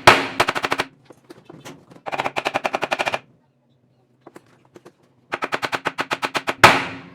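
Rapid hammer taps on the spin basket of an Electrolux LTE12 washing machine, in three quick runs of about ten blows a second with pauses between, then a single hard ringing blow near the end. The basket is rusted onto its shaft and is being knocked loose.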